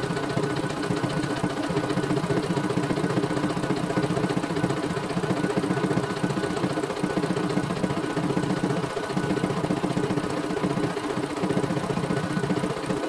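CNY E900 computerized embroidery machine stitching a test design: the needle runs rapidly and steadily while the hoop is driven along, with a couple of brief dips in the sound in the second half.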